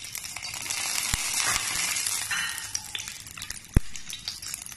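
Whole spices sizzling in hot ghee and coconut oil in a stainless steel pot, stirred with a wooden spatula; the sizzle is strongest a second or two in. One sharp knock of the spatula against the pot comes near the end.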